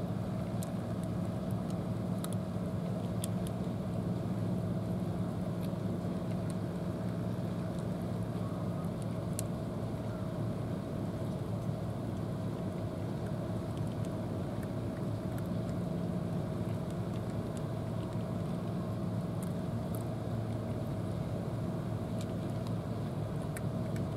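A steady low drone of an idling engine, unchanging throughout, with scattered faint high clicks of cats crunching dry kibble.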